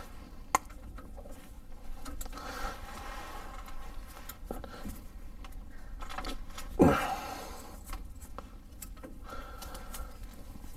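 Hand ratchet clicking in short runs as it drives in the tapered bolt of an idler pulley, with light handling scrapes of tools and parts. One louder bump about seven seconds in.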